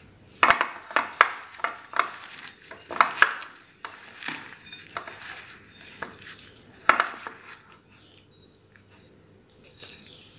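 Hands packing spice-coated lemon peels from a glass bowl into a glass jar: irregular clinks and knocks of glass, with the scrape and rustle of the coarse salt-and-spice mix, thinning out over the last few seconds.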